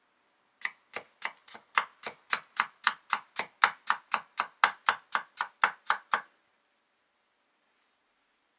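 A homemade cleaver knife, made from an old saw blade, chopping a vegetable into small cubes on a wooden cutting board: about twenty quick, even strikes of the blade on the board, around four a second, stopping a little after six seconds in.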